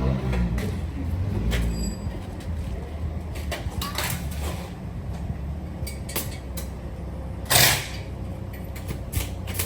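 Muffler-shop work noise: scattered metal clicks and knocks from work on a car's new exhaust over a steady low rumble, with one short, loud hiss about seven and a half seconds in.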